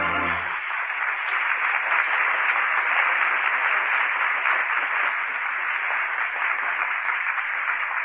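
Studio audience applauding on an old broadcast recording, a dense, steady clatter of clapping; sustained music stops about half a second in.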